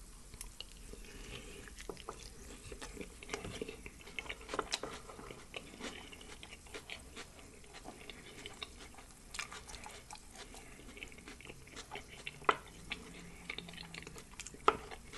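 Close-miked chewing and mouth smacking on a birria-and-cheese pupusa: many small, irregular wet clicks, with a few louder smacks about four and a half seconds in and near the end.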